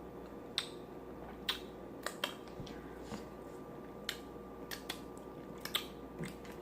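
Close-miked chewing and lip smacking: about ten short, sharp mouth clicks at irregular intervals over a steady low hum.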